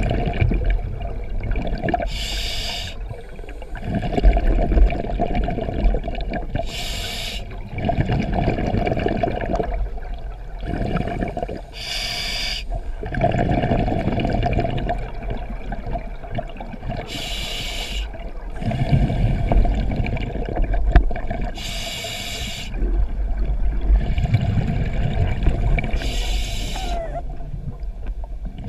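Scuba diver breathing through a regulator underwater. Each breath starts with a short hiss on the inhale, followed by a longer rumble of exhaled bubbles. The cycle repeats about every four to five seconds, six breaths in all.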